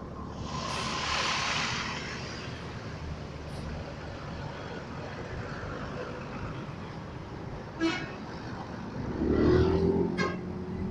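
Road traffic noise with a burst of hiss about a second in, then a bus's telolet horn sounding loudly near the end.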